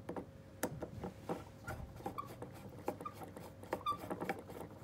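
Flat-blade screwdriver unscrewing the high-speed main jet from a two-stroke outboard carburetor: a run of small, irregular metal clicks with a few short squeaks as the blade turns in the jet.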